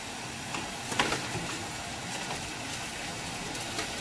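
Pie on a foil-lined tray being slid onto a metal oven rack, with a light clink about a second in and a few fainter clicks, over a steady hiss.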